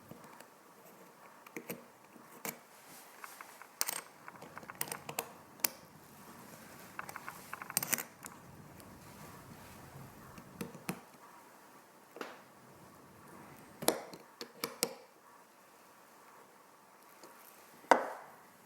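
Small, irregular clicks and taps of a tiny screwdriver and watch parts being handled while a wristwatch battery is changed. A sharper tap near the end is the loudest.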